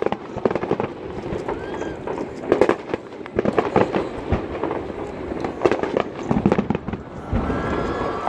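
Fireworks shells bursting again and again, sharp bangs and crackles that come in clusters every second or so, over the murmur of a watching crowd.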